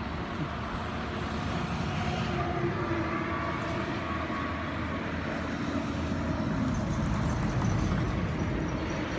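Traffic on a busy road: cars passing with steady tyre and engine noise that swells slowly, loudest near the end.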